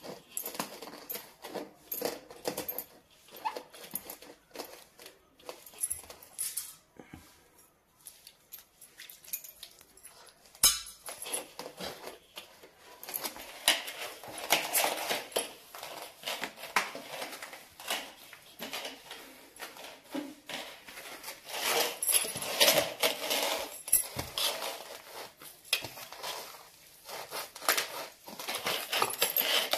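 Hands mixing malpua batter of flour, grated coconut and jaggery in a stainless steel bowl: rubbing and squishing of the mix, with metal bangles clinking against the steel. The sounds grow busier from about halfway in.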